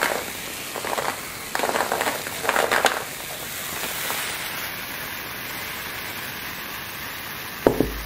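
Carbonated drink fizzing in a tall glass held close to the microphone. Crackling bubbles come in clusters over the first few seconds, then settle into a steady fizzing hiss. There is one sharp knock near the end.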